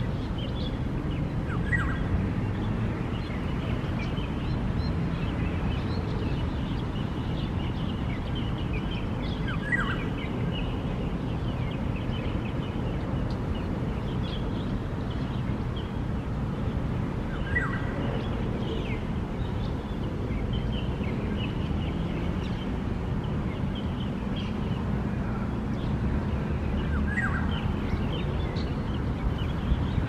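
Black-naped oriole giving a short call four times, about eight seconds apart. Faint high twittering and a steady low background rumble run underneath.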